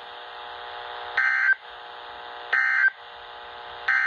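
NOAA Weather Radio SAME end-of-message data signal: three short bursts of warbling two-tone digital data, each about a third of a second long and a little over a second apart, over a steady radio hiss. It marks the end of the warning broadcast.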